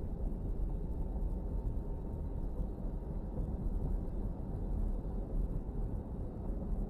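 Car driving at steady speed: a continuous low road and engine rumble.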